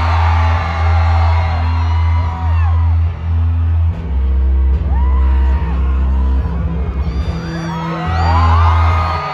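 Live rock band playing a slow intro of deep, held bass notes that change every second or two, with an audience screaming and whooping over it, loudest near the start and again near the end.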